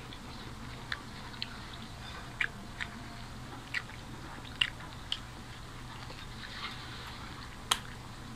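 Close-up eating sounds of people chewing and biting into moghlai paratha, an egg-stuffed fried flatbread: about eight short, sharp mouth clicks and smacks at uneven intervals, the sharpest near the end, over a low steady hum.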